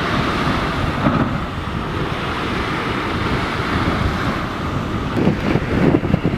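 Wind buffeting the microphone over the wash of water, with a few stronger gusts about five to six seconds in.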